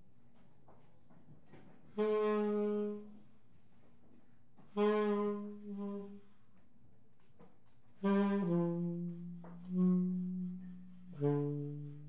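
Tenor saxophone playing long held notes in five separate phrases with short silences between them; the later phrases step down to lower notes.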